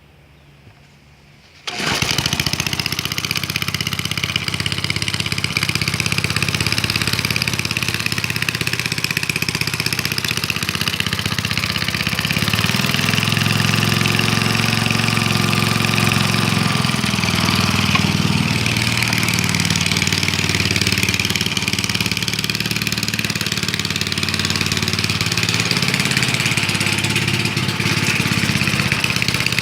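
Old four-stroke petrol lawnmower engine, converted to run on biogas fed through a gas valve into the carburettor, starts up suddenly about two seconds in and then runs steadily.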